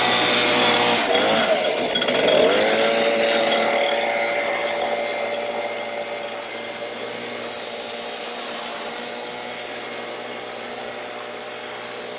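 Handheld leaf blower running, blowing water out of a metal roof gutter to dry it. Its pitch dips and recovers twice in the first few seconds, then it runs steadily and slowly gets quieter.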